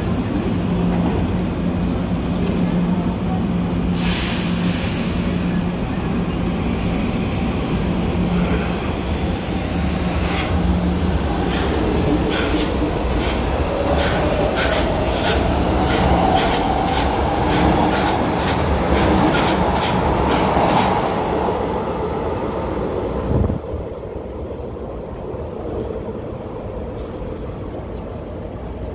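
Electric metro train standing at the platform with a steady low hum, then pulling away: a rising motor whine and a run of wheel clicks over the rail joints. An abrupt cut past the middle leaves a quieter, more distant train noise.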